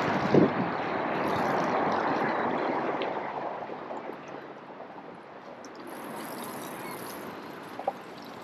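Water from a hose spraying and splashing onto a boat's deck and running off the hull, loudest for the first few seconds and then fainter. A single short knock near the end.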